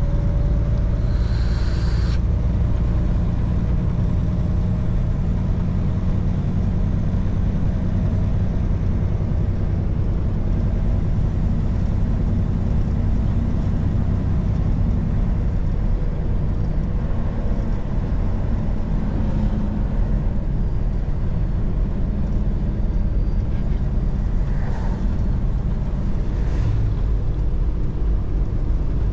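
Semi truck's diesel engine and tyres making a steady low drone while cruising on the road.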